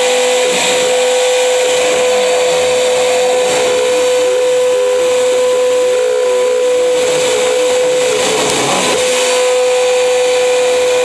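CNC router running as it cuts a carving: a steady high spindle whine throughout, with lower tones shifting up and down in pitch as the machine moves.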